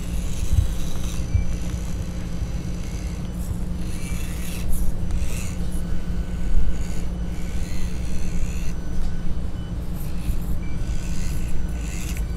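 Axial SCX24 Deadbolt mini crawler's small electric motor and gearbox whirring in short on-and-off spurts, with its tyres and chassis scraping over the crawl course, over a steady low hum.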